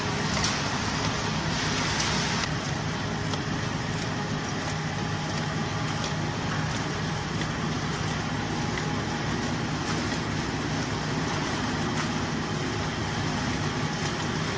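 Steady machinery noise, an even mechanical din with a faint low hum and a few light ticks.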